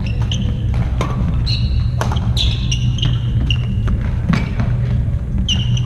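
Hammer strikes at an irregular pace, about eight sharp knocks, several with a short high ring after them. A steady low rumble runs underneath.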